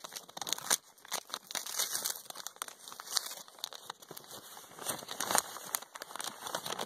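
Lined notebook paper crinkling and rustling as a handmade card pack is handled and opened, in many irregular crackles.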